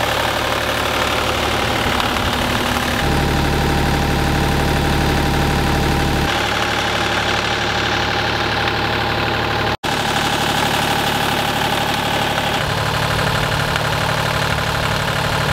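Engine of a Vermeer LM42 compact trencher/backhoe running steadily. Its note shifts a few times, and there is a sudden split-second dropout near the middle.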